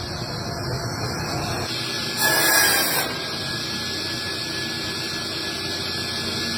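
Factory machinery running steadily. About two seconds in there is a loud hiss lasting under a second, and a thin high whine carries on after it.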